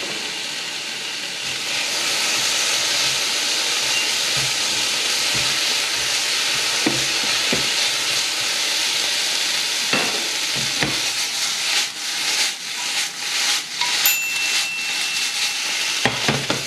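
Chopped beef and onions sizzling in a hot frying pan just after water has gone in. A few sharp clicks of a utensil come in the second half, and the sizzle turns uneven near the end.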